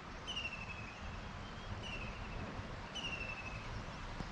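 A bird's clear whistled note, sliding slightly down in pitch, repeated about every second and a half over a steady rush of river water.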